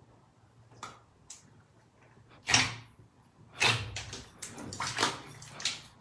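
Hands squishing and squeezing a large mass of glossy slime in a plastic tub, making wet squelches. The loudest squelch comes about two and a half seconds in, and several more follow close together in the second half.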